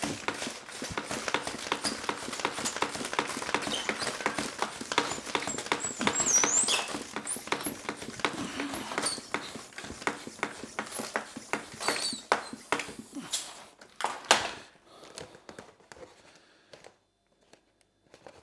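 Floor-standing bicycle pump worked in quick repeated strokes to inflate an AirSac air-cushion bottle protector, with high squeaks partway through. The pumping stops about fourteen seconds in, leaving quieter handling sounds.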